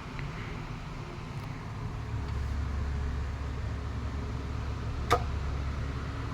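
12-inch Galaxy 2150 oscillating table fan running with a steady low hum, the rumble growing louder about two seconds in. A single sharp click about five seconds in.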